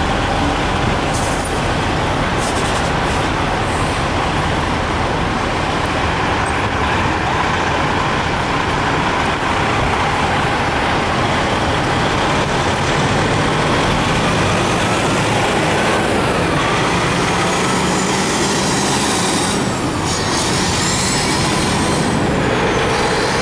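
Heavy diesel tractor-trailers and tankers driving past close by, one after another, in a loud, steady din of engines and tyres on the road.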